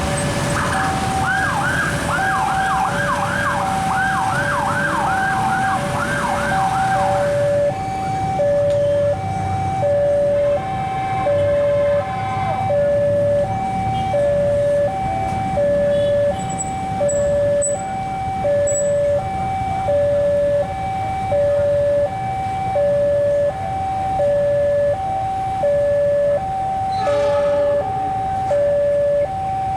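Railway level-crossing warning alarm sounding: a steady electronic two-tone signal, high and low tones taking turns over and over. For the first seven or so seconds a loud rushing noise with a quick run of rising chirps goes with it, then cuts off.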